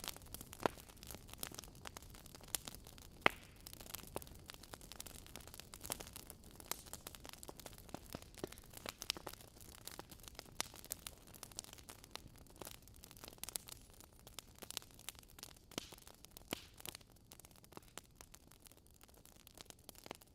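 Logs burning in a fireplace, crackling steadily with frequent small pops and snaps over a soft hiss; a couple of sharper pops stand out in the first few seconds.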